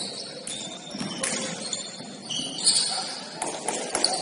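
Basketball shoes squeaking on a hardwood court in short, high chirps, the loudest about two and a half seconds in, with a few sharp knocks of the ball or feet on the floor.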